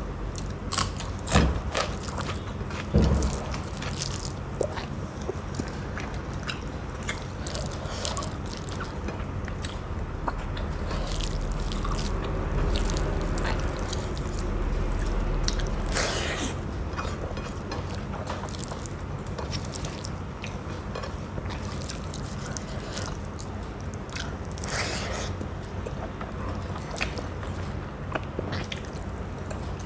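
Close-up eating sounds: chewing and the wet clicks and smacks of rice and curry being eaten by hand, with a couple of louder knocks in the first few seconds, over a steady low hum.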